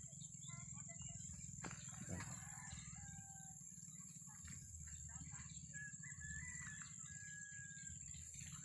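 Faint outdoor ambience: a steady low hum and a steady high-pitched whine, with a few faint, distant bird calls, one about three seconds in and a longer one in the second half.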